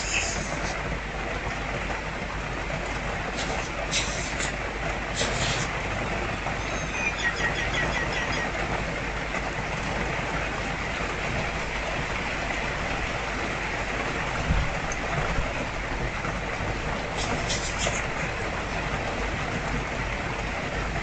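Steady hiss of rain mixed with the splashing trickle of a small garden fountain. A few short high bird calls break in, one of them a quick run of chirps.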